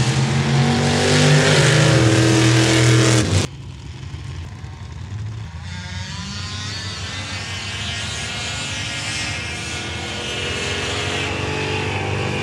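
Off-road vehicle engine running loud, then an abrupt cut about three and a half seconds in to a quieter engine that revs up and holds a steady pitch.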